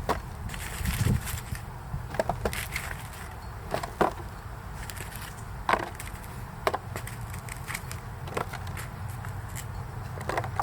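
Red creamer potatoes knocking against each other and the container as they are handled and loaded for weighing on a scale. Scattered single knocks come every second or two over a low steady rumble.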